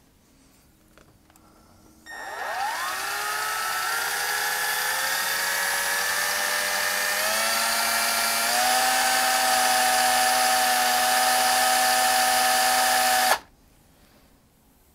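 Small electric drill spinning up about two seconds in, its whine rising in pitch and stepping up twice as the speed is raised, then running steadily before it cuts off suddenly. It is spinning the stretched core wire so that the thin wire wraps onto it.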